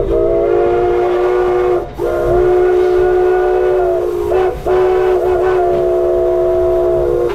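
Steam locomotive whistle of Denver & Rio Grande Western 491, sounded as three long blasts with brief breaks between them as the engineer pulls the whistle cord.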